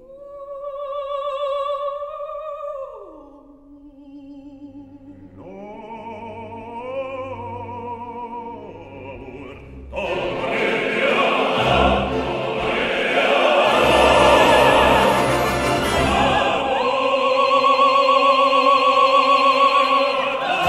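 Operatic music with orchestra. A single voice sings with vibrato, holding a note before sliding down. About ten seconds in, the full orchestra and voices come in much louder.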